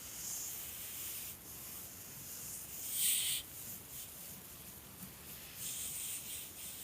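A sleeping dog breathing softly and airily, several slow breaths in a row, the loudest about three seconds in.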